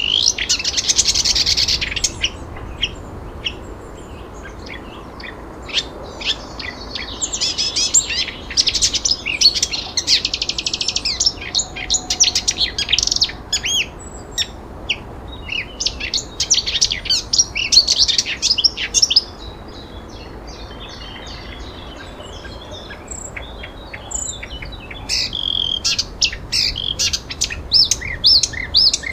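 Several songbirds chirping and trilling, in dense bursts of short high calls with a quieter stretch about two-thirds of the way through, over a low steady background hiss.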